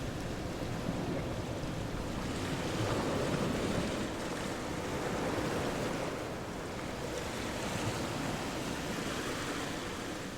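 Steady rushing noise without any tone or rhythm, swelling a little and easing off again over several seconds.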